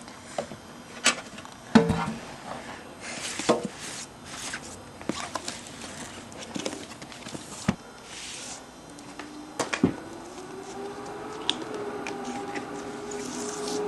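Vinyl LP jackets being flipped through and handled: cardboard sleeves knocking against each other, with papery sliding swishes. Later a steady low hum comes in, rising slightly before it holds.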